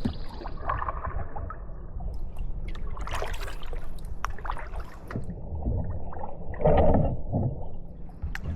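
Kayak paddle strokes on calm water: irregular splashes and water dribbling and gurgling off the blade, with a few knocks and a steady low rumble. A louder splash comes about seven seconds in.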